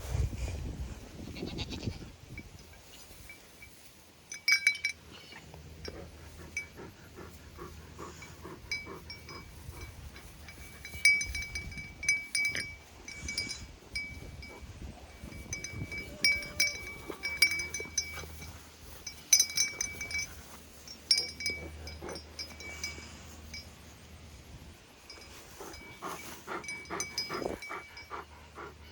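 A dog whining: short high whines repeated many times, mixed with scattered clicks and knocks.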